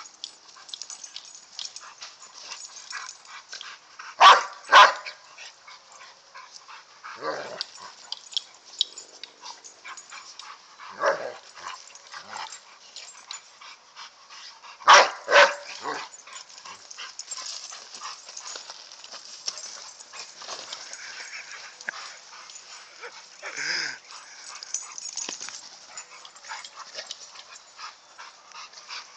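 Dogs play-fighting, giving short barks and yips: the loudest come in two quick pairs about four and fifteen seconds in, with single ones in between.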